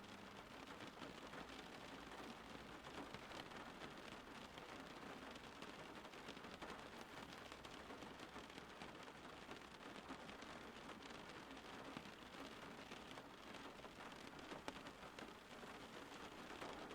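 Faint, steady rain falling, a continuous hiss dotted with many small drops.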